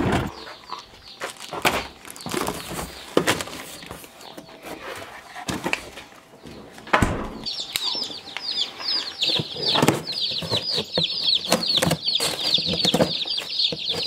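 Knocks and footsteps while a box is carried and set down. About halfway in, a boxful of day-old chicks starts peeping: a dense, continuous chorus of rapid, high, falling peeps.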